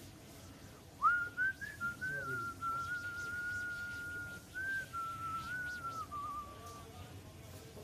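A person whistling a tune in long held notes with small slides and wavers. It resumes about a second in after a short break and fades out near the end.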